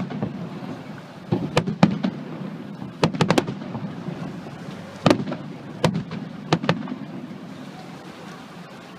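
Aerial fireworks bursting: clusters of sharp bangs, two to four close together, over a continuous low rumble. The bangs stop about two seconds before the end, leaving only the rumble.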